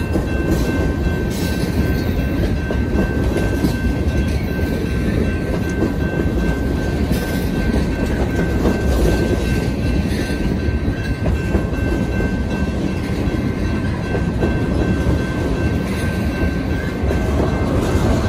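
A train rolling past at close range: a steady, loud rumble of railcars and steel wheels on the rail, with some clickety-clack and a thin steady whine over it.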